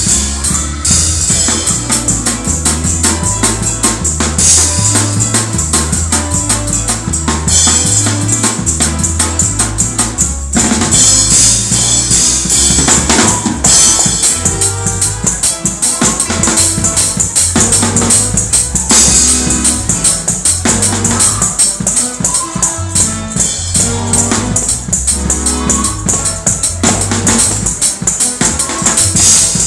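Acoustic drum kit played fast in a gospel praise-break groove: rapid snare and cymbal hits over the bass drum. A bass line moves in stepped low notes underneath.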